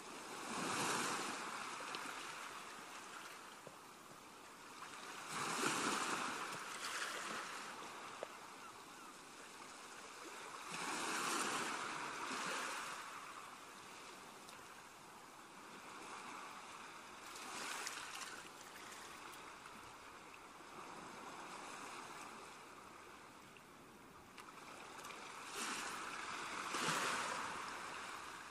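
Ocean waves washing in on a shore, a rushing surge that swells and falls back about every five or six seconds.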